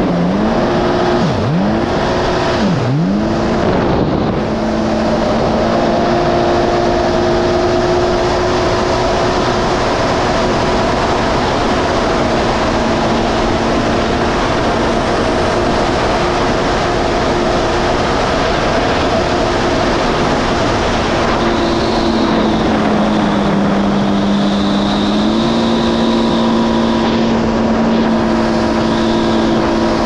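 Yamaha GP1800R SVHO jet ski's supercharged four-cylinder engine running at a steady cruise, with wind and water rush over it. Its pitch swoops down and back up a few times in the first seconds and dips briefly again about 23 seconds in. The rider hears it running off and the RPMs not getting as high, which he takes for something supercharger-related.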